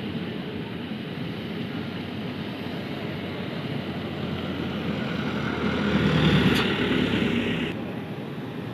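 A bus driving past close by, its engine and tyres swelling to a peak a little past halfway and then falling away, over a steady background rumble.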